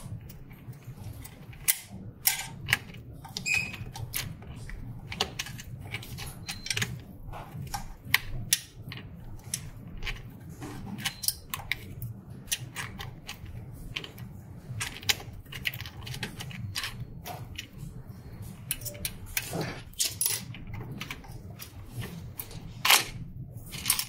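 Irregular sharp clicks and clacks of small plastic parts being handled and unclipped inside a UV printer's print-head carriage, over a low steady hum.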